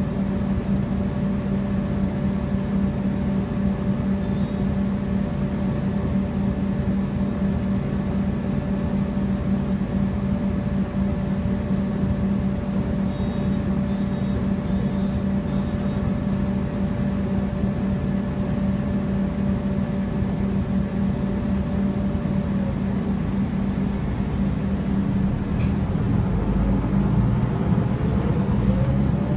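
A MAN Lion's City city bus engine idling while the bus stands still, heard from inside the cabin as a steady hum with a higher whine that stops about three-quarters of the way through. A few seconds before the end the engine note rises as the bus pulls away.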